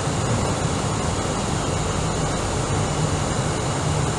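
Steady cabin noise of an Airbus A319 on approach: a constant low engine hum under the rush of air past the fuselage, heard from inside the cabin.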